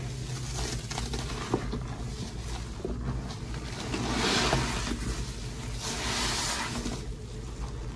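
Wet sponges squeezed and worked in a basin of thick dish soap lather: squishing, crackling foam, with two louder squeezes about four and six seconds in. A steady low hum runs underneath.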